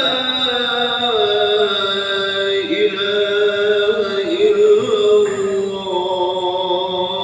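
A muezzin's voice chanting the dawn call to prayer (Fajr adhan), drawing out one long phrase with small turns in pitch.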